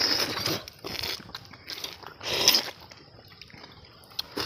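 Eating sounds from tender palmyra fruit (ice apple, nungu) being bitten and sucked straight from the cut fruit, in three short noisy bursts.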